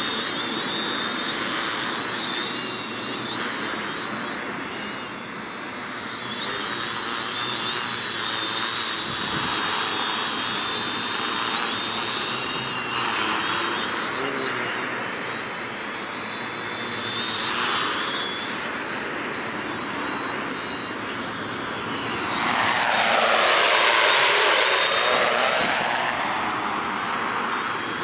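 Tarot T810 hexacopter in flight, its six 320 kV motors and 15-inch carbon-fibre propellers giving a steady buzzing drone with a high whine. The sound swells briefly at about 18 seconds in. It grows loudest from about 22 to 26 seconds in, then eases off.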